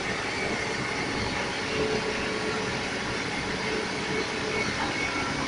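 Heavy diesel machinery running steadily, a constant engine drone under broad outdoor noise.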